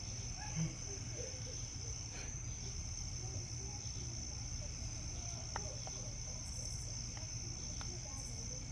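Crickets chirring in a steady, high-pitched night chorus, over a constant low rumble on the microphone.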